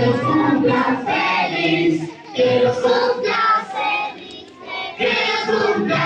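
A woman singing into a microphone with other voices singing along, in phrases broken by short pauses about two seconds in and around four seconds in.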